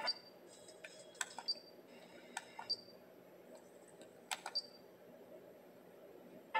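Faceplate buttons of a Pioneer DEH-8380SD car stereo being pressed: a handful of sharp, scattered clicks and a few short high blips over a faint hum.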